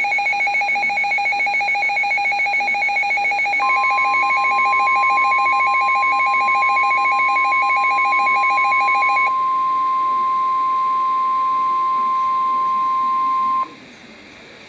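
Weather alert radio's alarm beeping rapidly, joined about three and a half seconds in by the long steady NOAA Weather Radio warning alarm tone, which announces a warning broadcast. The beeping stops about nine seconds in, the steady tone cuts off near the end, and faint radio hiss remains.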